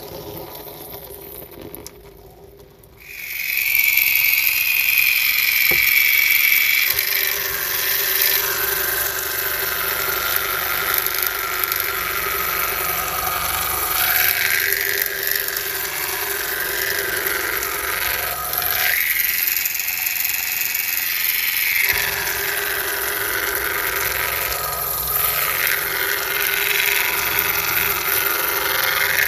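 Miniature electric carpet-scrubbing machine running over a foam-soaked rug: a small motor's whine with steady scrubbing, starting abruptly about three seconds in and rising and easing as the machine is pushed back and forth.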